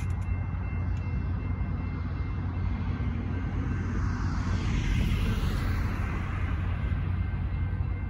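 A car passes close by on wet pavement: its tyre hiss swells and fades about halfway through, over a steady low rumble.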